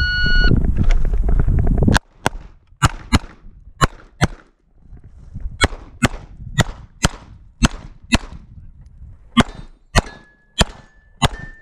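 Shot timer start beep, then about two seconds later a course of rapid pistol fire from a Sig Sauer P320: shots mostly in quick pairs, about eight pairs in all, with short pauses between targets.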